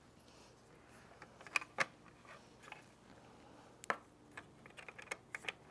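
Faint, scattered metallic clicks and taps of a hex key turning a screw through a bicycle headlight's metal mounting bracket, fender and front fork, a few sharp ticks a second apart.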